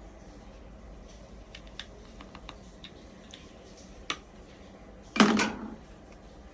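Small scattered clicks and taps of plastic parts being handled, with one much louder clatter about five seconds in that lasts about half a second.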